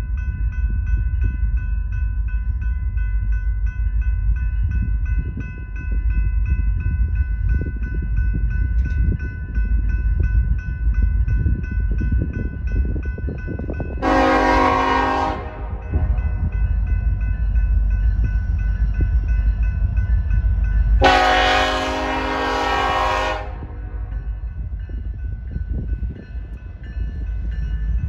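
Diesel locomotive horn on an approaching freight train sounding two blasts, a short one about halfway through and a longer one a few seconds later, over the steady low rumble of the oncoming train.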